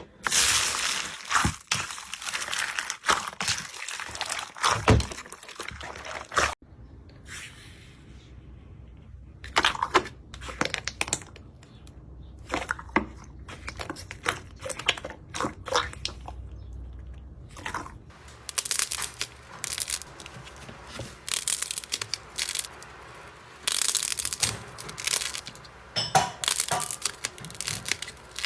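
Slime being pressed, squeezed and stretched by hand, giving runs of close-up crackling and crunching, with a quieter, sparser stretch in the middle.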